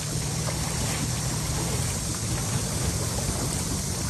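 Steady rushing noise with a low rumble from a rescue boat moving over floodwater: water and wind noise, with no clear engine tone.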